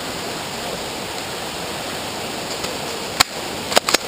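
Steady rushing of a river's flowing water. Three short, sharp cracks come near the end, one about three seconds in and two close together just before it ends.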